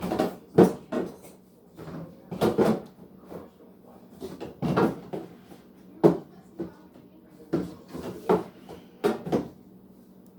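Refrigerator door and groceries being handled: a string of about ten irregular knocks and clunks as things are moved and set down.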